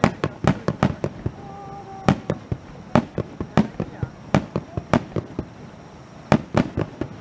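Aerial fireworks shells bursting in a rapid, irregular series of sharp bangs, about three a second.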